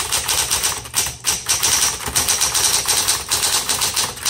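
A Smith Corona Coronet Electric 12 electric typewriter typing rapidly, several keystrokes a second, with its motor running steadily underneath. The type bars are striking the paper through a ribbon whose direction has just been reversed, to check that faint print turns dark again.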